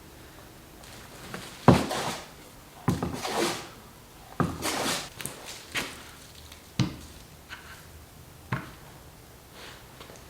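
Wood being worked by hand: about five sharp knocks, each followed by a short scraping rub, spaced a second or two apart.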